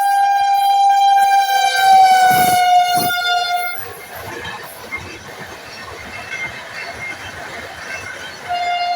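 Train horn on the Dhauli Express giving a long, loud, steady blast that drops slightly in pitch about two seconds in and cuts off near the four-second mark. The noise of the train running follows, and the horn sounds again just before the end.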